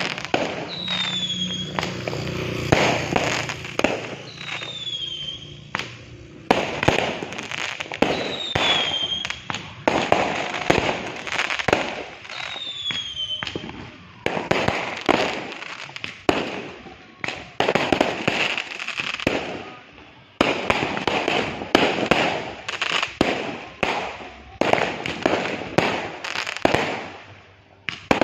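New Year's fireworks going off in quick succession: many sharp bangs with crackling between them, and a few short falling whistles in the first half.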